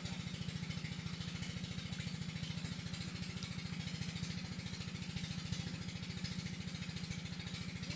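A small engine running steadily at one speed, a fast, even chugging.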